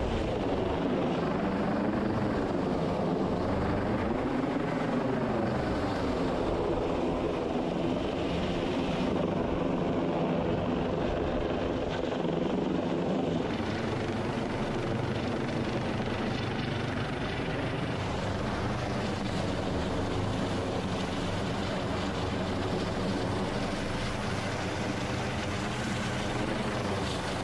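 MH-65 Dolphin helicopter running, a steady rotor and turbine noise. Its pitch wavers up and down over the first few seconds, then holds steady.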